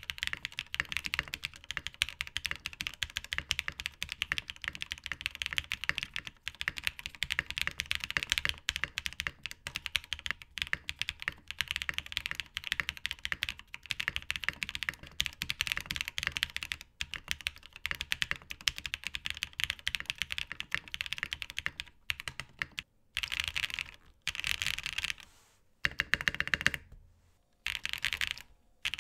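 Fast typing on a tenkeyless mechanical keyboard with lubed and filmed POM linear switches fitted with foam switch tripods, which are meant to damp the higher-pitched noise: a dense run of key clacks. About 23 s in, the steady typing gives way to short bursts of rapid key presses with brief pauses between them.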